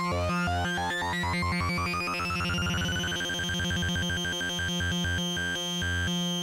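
MOS 6581 SID sound chip synthesiser playing a fast arpeggio with oscillator sync: a bright buzzy tone chopped into rapid steps over a pulsing bass, with a sweep rising through the first three seconds and then holding steady.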